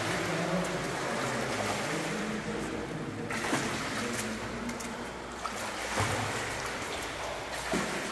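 Water splashing from a swimmer's backstroke flutter kicks and arm strokes, over a steady wash of pool noise.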